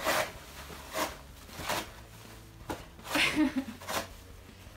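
Facial tissues being yanked one by one from cardboard tissue boxes: a quick papery swish with each pull, about six pulls in under five seconds.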